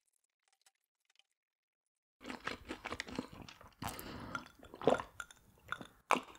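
A person chewing food, a run of irregular wet chewing and clicking mouth sounds starting about two seconds in after near silence.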